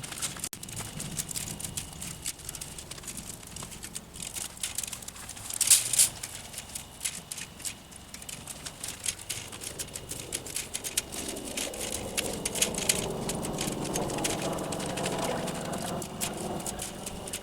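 Dry, dead garden vines and stalks rustling and crackling as they are pulled off a trellis, with a loud crackle about six seconds in. A wavering pitched sound joins in the second half.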